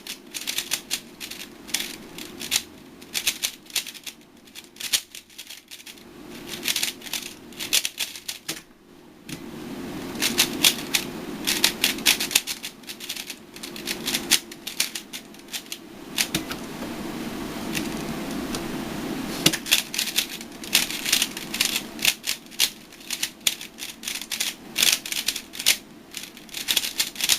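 A plastic speedcube, a Lingyun core with GuHong pieces, being turned fast: rapid, irregular clacking of the layers in runs, with short pauses between them.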